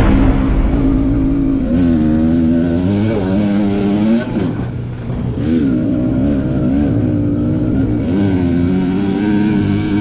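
Kawasaki KMX125 two-stroke single-cylinder engine with a VForce 3 reed valve, revving under load on a trail ride. Its pitch climbs and falls repeatedly as the throttle is worked, with a sharp drop about four seconds in.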